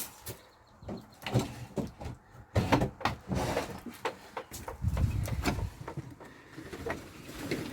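Irregular knocks, clatters and scrapes, with a low rumble about five seconds in.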